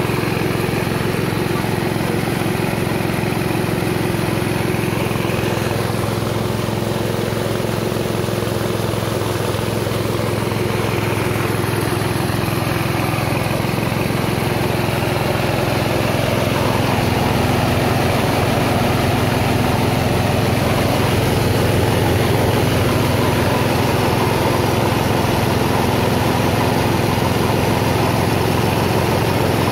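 A small engine runs steadily, driving a rice milling machine that is hulling paddy into rice and bran. The drone gets slightly louder about halfway through.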